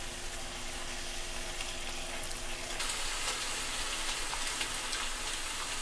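Tomato sauce simmering gently in a pan on low heat: a steady soft sizzle with small popping bubbles, a little louder and brighter about three seconds in.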